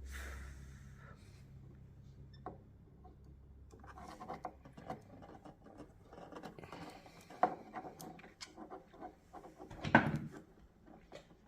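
Faint scratching and rubbing of small parts being handled at a workbench, with scattered light clicks and a sharper knock about ten seconds in. A low hum fades out over the first few seconds.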